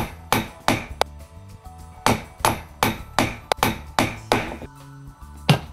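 Claw hammer driving galvanized ring nails through a galvanized steel cant strip into plywood decking: sharp metallic strikes about three a second, in runs broken by a pause of about a second early on and another near the end.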